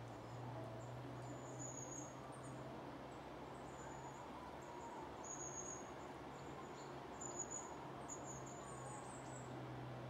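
Coal tits calling: a dozen or so short, thin, very high-pitched notes, scattered irregularly, over a steady low hum.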